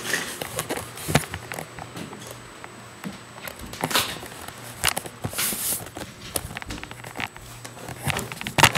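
Footsteps of someone walking with a hand-held camera, with irregular knocks and rustling from the camera being handled and swung.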